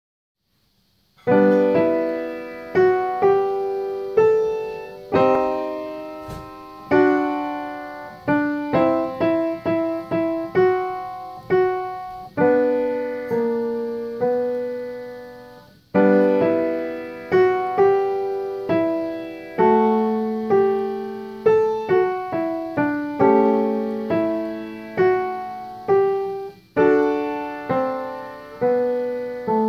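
Upright piano played by hand: chords and melody notes struck one after another, each fading away, starting about a second in, with a brief pause near the middle.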